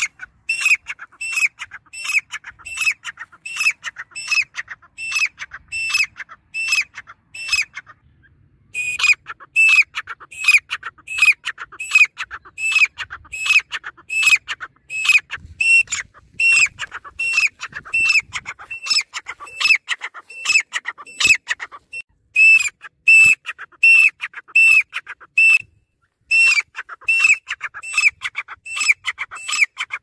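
Grey francolin calling: a long run of shrill, repeated notes at about two a second, with two short breaks, one about eight seconds in and one near the end.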